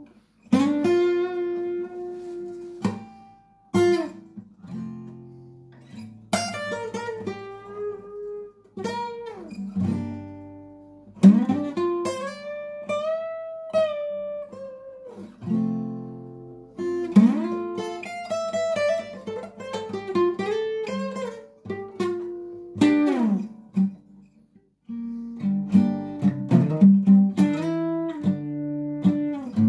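Solo guitar playing a slow piece: plucked single notes and chords in phrases, several held notes bent so that their pitch slides up and down.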